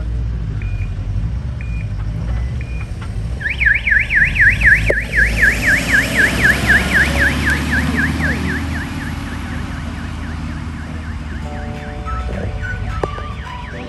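A passing vehicle sounding a fast yelping siren, its pitch rising and falling several times a second. It is loudest as the vehicle goes by and fades as it drives away, over a low engine rumble.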